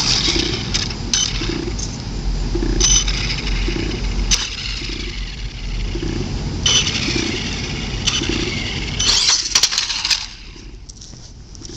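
Traxxas Revo VXL electric RC monster truck's brushless motor whining in bursts as the throttle is applied and released, over a steady rumble. It goes quieter about ten seconds in.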